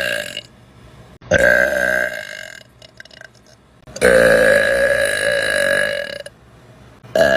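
A person belching loudly, several separate burps. One ends just after the start, one lasts about a second and a half from a little over a second in, a long drawn-out one of about two seconds comes at around four seconds, and another begins near the end.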